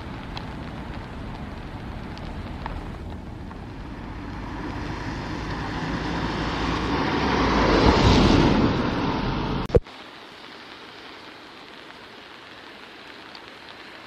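Steady rain hiss with a vehicle passing on the wet road, its tyre noise building to a peak about eight seconds in. The sound cuts off suddenly just before ten seconds, leaving quieter steady rain.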